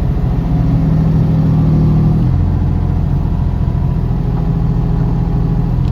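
Diesel engine of a JCB 8030 ZTS mini excavator running steadily. Its note changes for the first two seconds or so, then settles back to an even run.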